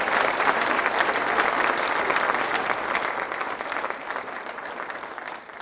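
Audience applauding after an acceptance speech, a dense patter of many hands clapping that thins out and fades over the last two seconds.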